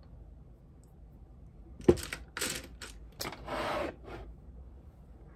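Makeup items being handled: a sharp click just before two seconds in, then a couple of seconds of rustling and scraping as a plastic case is picked up.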